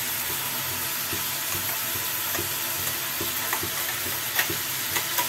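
Flat beans and potato pieces sizzling steadily in hot oil in a kadai, with a few light clicks and taps near the end.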